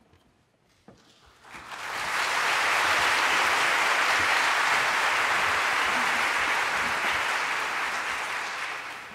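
Audience applauding: it starts about a second and a half in, swells quickly to a steady level, and fades away near the end.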